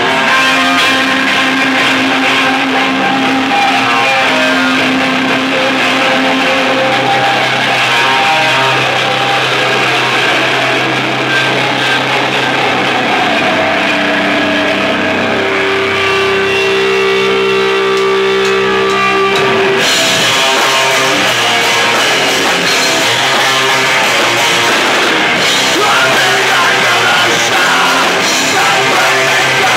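Loud live rock band with electric guitar and bass holding long, sustained notes. About two-thirds of the way through, the sound suddenly brightens as the drums and cymbals come in and the full band plays on.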